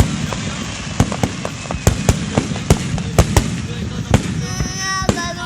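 Fireworks display going off: a rapid, irregular run of sharp bangs and crackles over a continuous low rumble. Voices come in near the end.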